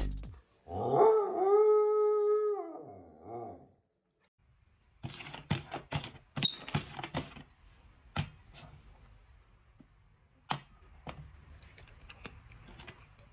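A dog howls once, a long pitched cry of about three seconds that wavers at its start and end. Sharp clicks and knocks follow.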